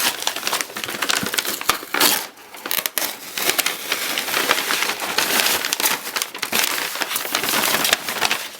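Packaging being handled and crumpled during unboxing: a continuous rustling crinkle with many sharp crackles.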